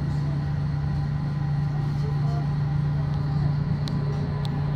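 Steady low hum of a ferry's engines, unchanging in pitch, with a couple of faint clicks near the end.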